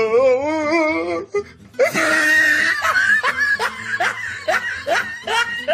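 A person laughing hard: first a drawn-out, wavering cry, then after a short break a long run of short bursts of laughter, about two or three a second.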